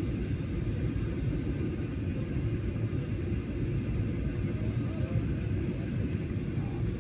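Steady low rumble of a Boeing 737-800's CFM56-7B engines and the air rushing past the fuselage, heard from inside the cabin over the wing as the jet descends toward landing.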